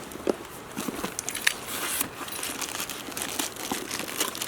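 Packing paper crinkling and rustling as it is unwrapped by hand, with scattered small crackles and clicks.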